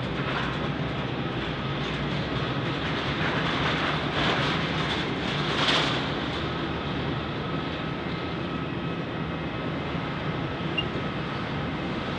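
Steady mechanical drone of an airliner under tow by a towbarless aircraft tug, with a low hum and a faint steady whine, and a louder rush of noise swelling about four to six seconds in.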